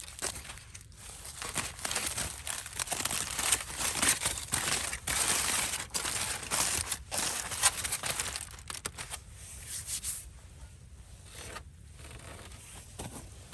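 Dense rustling and crinkling, like material being handled, crumpled or pushed through, full of small crackles. It is busiest from about two to eight seconds in, then thins out near the end.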